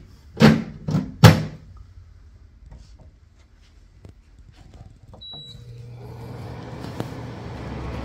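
Plastic water tank pushed home into a Midea dehumidifier, shutting with two loud knocks. About five seconds later a short electronic beep as the unit is switched back on, then its fan starts up with a low steady hum that grows louder.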